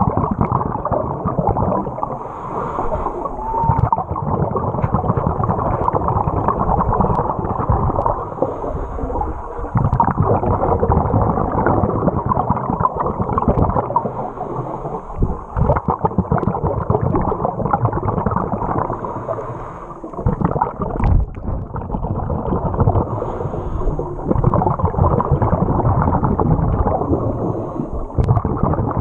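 Muffled underwater noise of moving river water on a submerged camera: a loud, dense low rumble with gurgling, easing briefly a few times.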